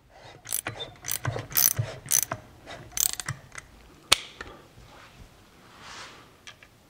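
Socket ratchet wrench clicking in several short runs of quick clicks, then one sharp click about four seconds in.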